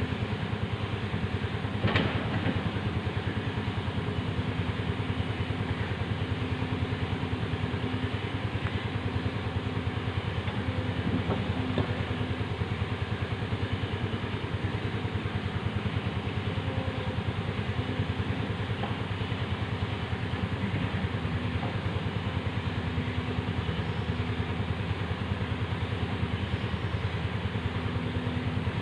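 Excavator's diesel engine running steadily, with a single clank about two seconds in.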